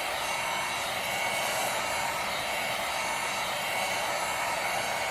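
Heat gun blowing hot air with a steady hiss, being used to soften the glue under a phone's back panel.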